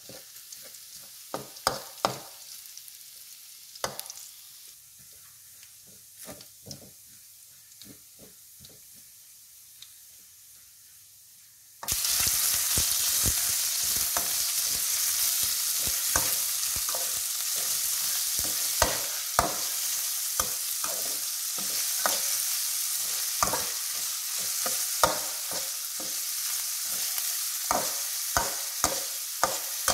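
A metal spatula scrapes and taps against a steel wok as small chopped pieces are stirred in a little oil, quietly at first. About twelve seconds in a loud, steady sizzle starts abruptly as sliced meat stir-fries, with the spatula still clacking and scraping the wok.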